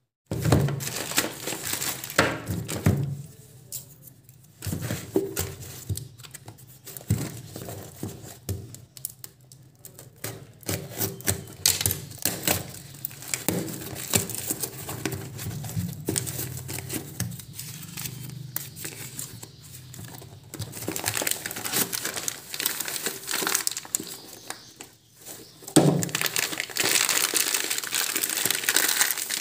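Plastic delivery packaging and a taped cardboard box being torn open and handled, a continuous crinkling and rustling with sharp crackles and tearing. It gets louder near the end as the plastic wrapping around the item is crumpled.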